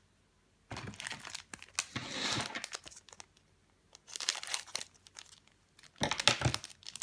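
Foil wrapper of a Pokémon card booster pack crinkling as it is handled and cut open with scissors, in three bursts of rustling.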